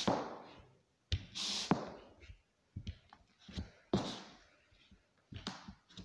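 Forearm crutch tips and a high-heeled pump knocking on a bare wooden floor as someone walks on crutches: a series of unevenly spaced knocks and taps, each with a short echo.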